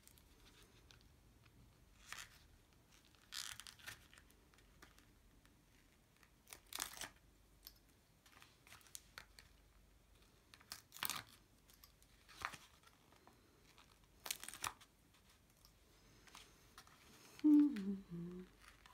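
Release paper being peeled off adhesive foam pads on a piece of card, in about six short separate tearing strips. Near the end there is a brief low vocal murmur.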